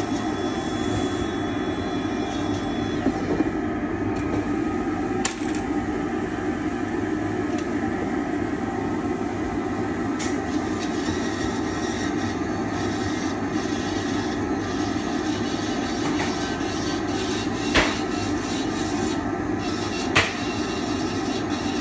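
Dental lab dust-extraction hood and micromotor handpiece running steadily while the bur trims a milled zirconia full-arch bridge, with a few sharp ticks about 5, 10, 18 and 20 seconds in.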